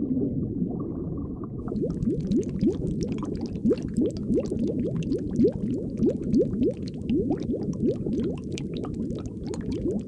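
Underwater bubbling: a stream of short rising bubble blips, about three a second, over a low steady water rumble, with a fine crackle of tiny bubbles coming in about two seconds in.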